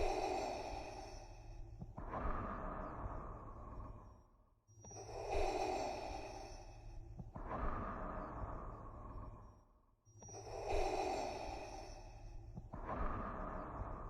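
Darth Vader's respirator breathing sound effect: three slow breath cycles, each an inhale followed by an exhale, at a steady rhythm.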